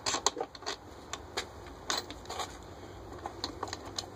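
Irregular clicks and light knocks, a quick cluster in the first second and then scattered single taps, of someone handling and fitting the plastic side cover of a Champion 2000-watt inverter generator.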